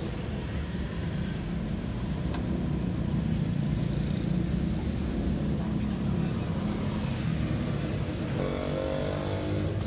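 A motorcycle engine running steadily, with no revving.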